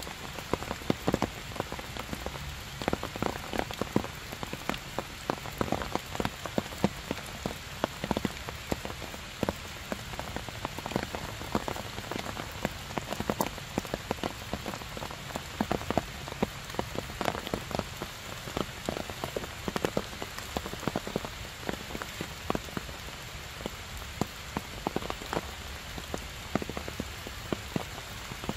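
Heavy rain falling steadily on stone and leaves, with many individual drops landing close by as sharp ticks.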